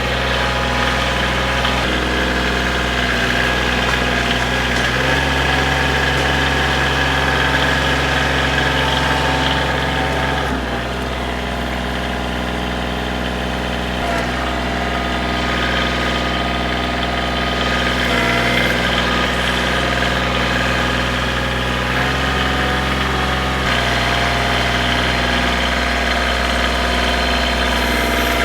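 Kioti compact tractor's diesel engine running steadily while it loads a trailer. Its note shifts a few times as the engine speed changes.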